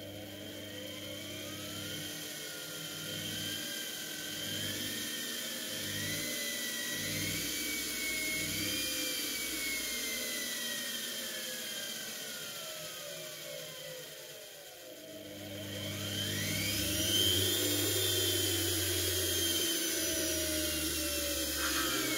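Washing-machine universal motor running under a speed-controller knob, giving a whine that follows the motor's speed. The pitch wavers upward over the first several seconds, falls steadily to its lowest about 15 seconds in, then climbs quickly to its highest and holds high near the end.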